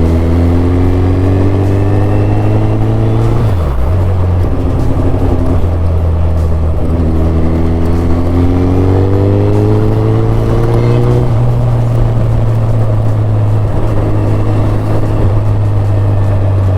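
Suzuki Hayabusa's inline-four engine pulling hard under acceleration, its pitch climbing, dropping briefly at a gear change about three and a half seconds in, then climbing again before settling to a steady cruise.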